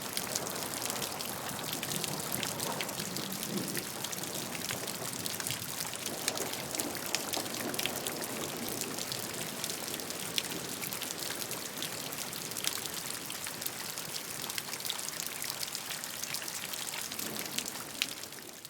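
Steady rain, with many individual raindrops striking sharply and close among the hiss of the downpour. It begins to fade out at the very end.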